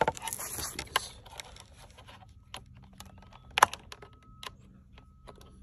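Scattered sharp clicks and taps of plastic and metal as a metal hook tool works the plastic latches on a Mercedes S550's trunk fuse box and control module, with one louder click about two thirds of the way through.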